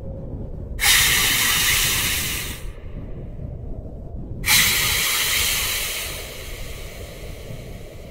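Two hissing bursts about four seconds apart, each starting abruptly; the first stops after about two seconds and the second fades away slowly.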